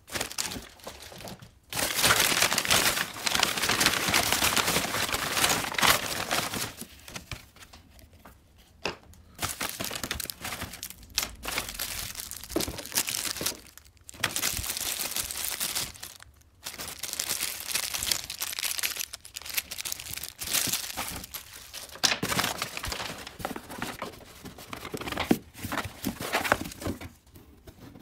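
Crumpled kraft packing paper and plastic bags rustling and crinkling as parts are lifted out of a cardboard shipping box. The rustling comes in long stretches broken by short pauses.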